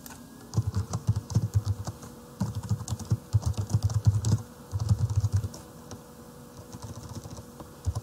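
Typing on a computer keyboard: rapid keystrokes in several quick runs, then fewer and lighter taps near the end.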